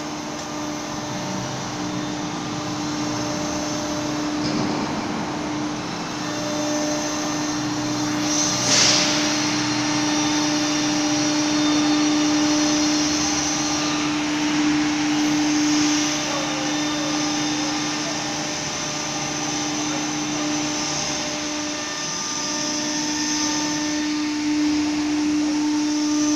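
CNC router's high-speed spindle running with a steady whine over a hiss of cutting while routing a wood door panel, with a brief sharp noise about nine seconds in.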